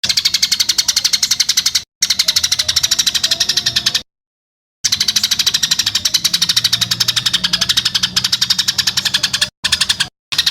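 A songbird's harsh, rapid rattling 'tembakan' call, a fast dry chatter of about a dozen clicks a second, repeated in bouts a couple of seconds long with abrupt silent gaps between them where the recording is cut.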